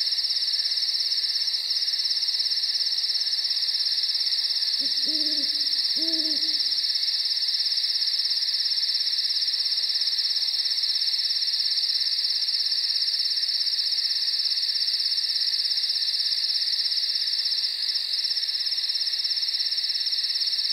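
Crickets chirring steadily, with an owl hooting twice about five seconds in.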